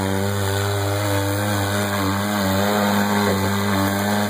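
Side-by-side UTV engine held at high revs under load as it climbs a steep dirt hill. The pitch stays high and steady with slight wavering, then begins to fall away at the very end as the throttle comes off.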